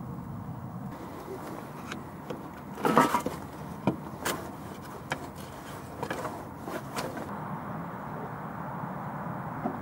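Knocks and clanks of metal on the footplate of a Ransomes traction engine as its fire is tended, loudest about three seconds in, over a steady low rumble.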